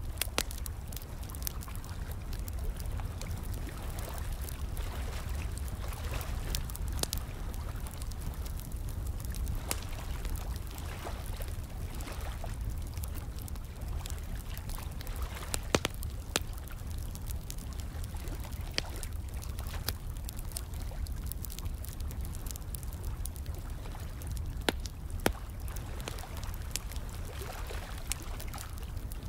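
Fire crackling with irregular sharp pops, a few of them louder, over steady running and trickling water.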